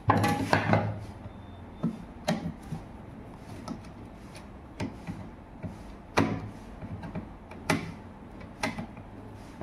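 Irregular clicks and knocks of a screwdriver working the screws of an induction cooker's display circuit board, with the plastic top casing being handled. The loudest clatter comes right at the start, followed by single sharp clicks every second or so.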